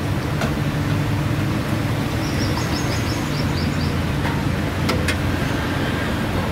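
Steady street traffic rumble with a low hum, broken by a few sharp clicks about half a second in and again near five seconds, and a quick run of high chirps between two and three seconds in.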